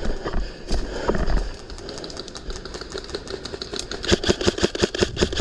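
Airsoft guns firing: scattered single shots, then from about four seconds in a rapid, even burst of about seven shots a second.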